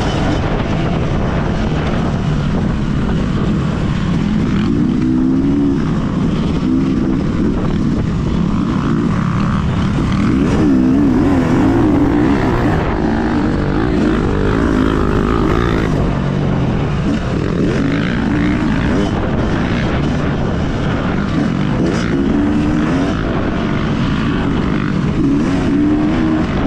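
Yamaha motocross bike engine heard from on board, revving up and falling back again and again as the rider works the throttle and gears around a dirt track, under a constant rumble of wind and engine noise.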